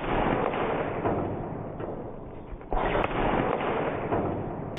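A .22 AirForce Condor PCP air rifle firing a 40-grain slug about two and a half seconds in: a sudden sharp report that trails off over a couple of seconds. It opens on the fading tail of the shot just before.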